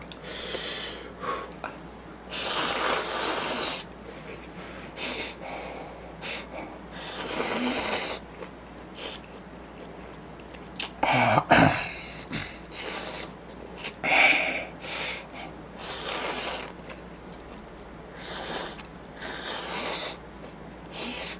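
A person slurping thick instant ramen noodles, about nine short rushes of air each lasting around a second, with quiet pauses between.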